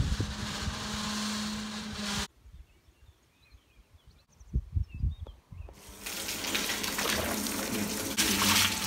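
A steady outdoor noise with a low hum, a near-quiet stretch, then milk gushing steadily from a hose into a cheese vat, louder near the end.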